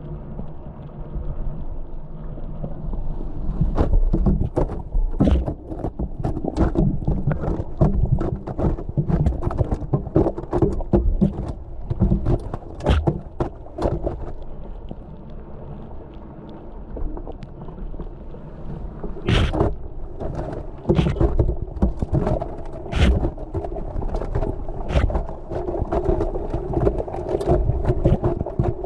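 Washing machine wash cycle heard from a GoPro inside the drum: muffled water sloshing and rumbling, with many sharp knocks as the camera case strikes the drum and tumbles with the load, and a steady hum in the second half.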